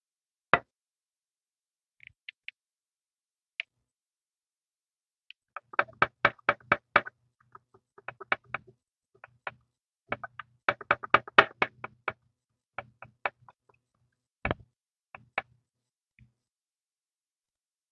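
Clear plastic toy-van window being rubbed with a cotton pad and polishing compound, the back-and-forth strokes giving two runs of quick light taps and clicks, about six a second. A single knock comes near the start and a louder one about three-quarters of the way through.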